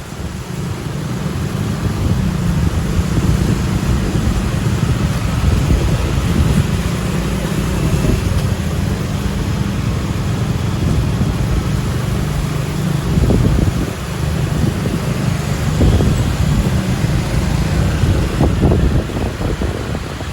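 Road traffic with heavy vehicles passing, a steady low rumble that swells now and then, with wind buffeting the microphone.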